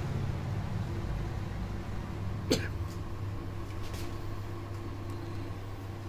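A single sharp neck crack about two and a half seconds in, from the head being twisted to the side, followed by a couple of fainter clicks, over a steady low room hum.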